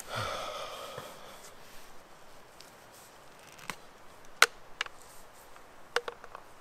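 Handling of a leather drinking bottle and its stopper: a short ringing knock at the start fades over about a second, then a few sharp clicks, the loudest about four seconds in, as the stopper is pulled out.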